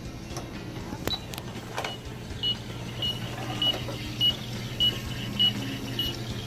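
Toy microwave (Minnie Mouse play set) running its pretend cooking cycle: a steady electronic hum with short high beeps repeating about every half second from about two seconds in. Two sharp clicks come before the beeps start, from the door or a button.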